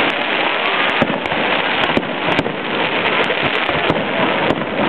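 Aerial firework shells bursting in a dense, continuous crackle with frequent sharp bangs, several a second.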